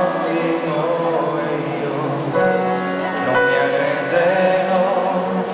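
A man singing an Italian worship song into a handheld microphone over musical accompaniment, heard through the hall's sound system, with long held notes.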